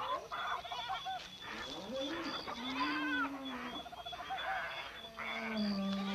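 Animal-like calls: a string of pitched calls that swoop up and down, with short fast chattering runs between them, the same pattern coming round again about every six seconds.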